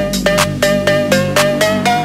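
Electronic background music: a quick run of short pitched notes over a steady held bass.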